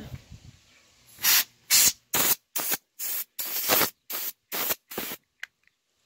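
Can of compressed-gas electronics duster, fired through its straw nozzle in about nine short blasts of gas, starting about a second in. The blasts are aimed into a laptop's charging port to clear out a stuck wood chip.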